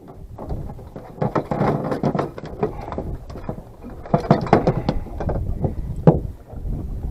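Hands working a landed fluke and its rig free of a mesh landing net with a metal hoop on a fiberglass boat deck: irregular rustling, scraping and knocks, with one sharp knock near the end.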